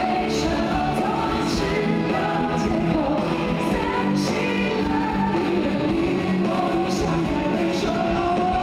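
Live rock-pop concert performance: male and female lead vocalists singing over a full band with drums, amplified through a large hall's PA.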